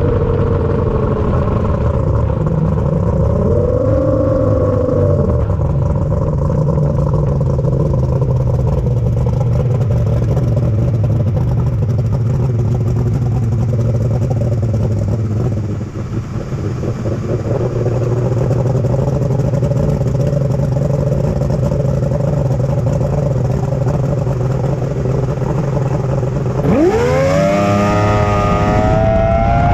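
Racing boat engine heard from on board. It slows at first with its pitch falling, blips briefly about four seconds in, then runs low and steady at idle. Near the end it revs up sharply with a fast-rising pitch as the throttle opens and the boat accelerates hard.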